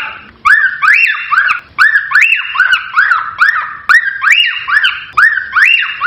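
Cockatiels calling: a fast, steady run of short whistled notes that each rise and fall in pitch, about three a second, with a brief pause just after the start.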